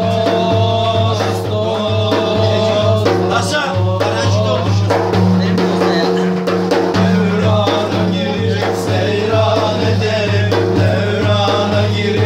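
Male voices singing a Turkish ilahi (religious hymn), accompanied by a large hand-struck frame drum beating a steady rhythm.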